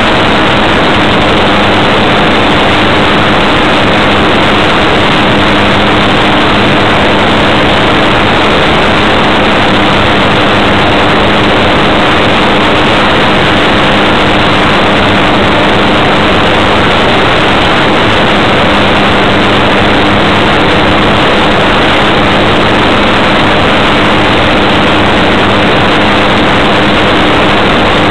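Motor and propeller of a Wilga model airplane in flight, heard through its onboard camera's microphone. It is a loud, unchanging rush of airflow noise with a faint steady hum of a few constant tones beneath it.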